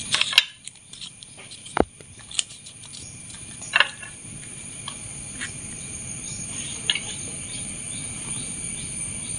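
Crisp ragi roti being torn and handled by hand, giving a few short crackles and taps, the loudest about half a second in and near four seconds. A steady high-pitched background hum runs underneath.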